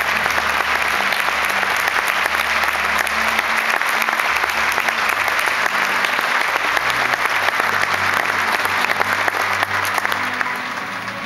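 A large audience applauding, a dense steady clapping with music playing underneath. It eases off near the end.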